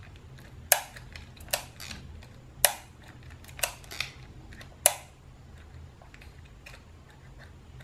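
Sharp mechanical clicks from a partly dismantled Canon Demi EE17's shutter mechanism as it is worked by hand: three louder clicks about two seconds apart, with a few fainter ticks between them.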